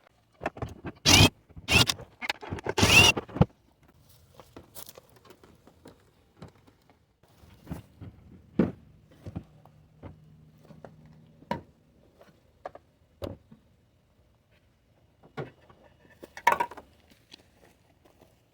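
Hands handling a plastic car taillight assembly: a burst of loud rustling and scraping strokes in the first few seconds, then scattered clicks and taps, with a few sharper clicks near the end.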